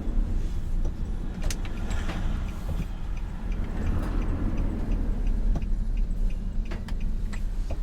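Steady road and engine rumble inside a moving vehicle's cabin, with a few light clicks and knocks.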